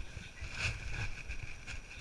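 Wind rumbling on the microphone outdoors, over a steady high-pitched drone, with a faint tap about a third of the way in.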